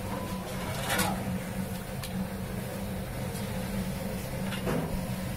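A metal rod knocking lightly against an aluminium pot of sugar syrup three times, over a steady low hum.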